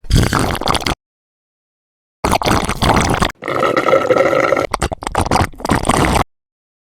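Three short stock sound effects played one after another, each starting and stopping abruptly with dead silence between them: about a second, then one just over a second long, then one of nearly three seconds.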